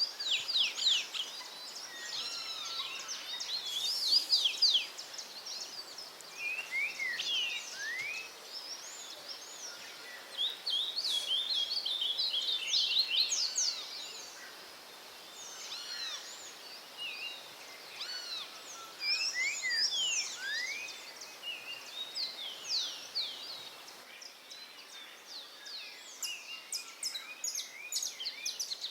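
Several songbirds singing and calling at once: a dense chorus of quick, high chirps and short whistled sweeps, over a faint steady hiss.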